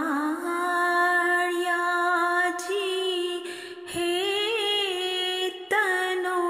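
A single voice singing an Ismaili ginan (devotional hymn) unaccompanied, holding long notes that waver slightly, with short breaks between phrases.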